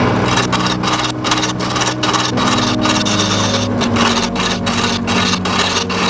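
Homemade woodworking lathe running with a steady motor hum while a tool scrapes the spinning wood, a dense rasping cut that starts right away.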